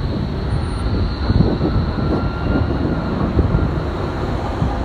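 Low-floor city tram passing at close range, a steady rumble of wheels on the rails, with a faint high whine in the middle.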